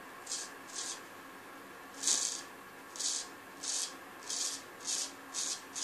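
Vintage early-1900s A.J. Jordan straight razor scraping through lathered beard stubble in short strokes, about two a second. There is a brief pause about a second in, and the loudest stroke comes at about two seconds.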